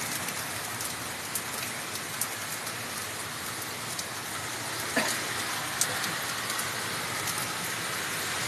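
Steady rain falling during a thunderstorm, an even hiss with a few sharp drop ticks.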